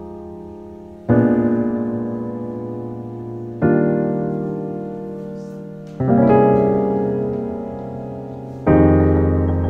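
Background music: slow piano-like keyboard chords, a new chord struck about every two and a half seconds and left to ring and fade.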